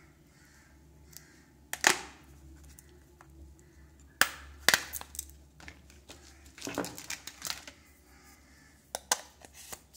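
Clip-on plastic back cover of a Samsung Galaxy J5 (2016) phone being pried off with the fingers, with the battery then handled: a string of sharp plastic clicks and snaps as the cover's clips let go. The loudest come about two and four seconds in, with a cluster of smaller clicks later.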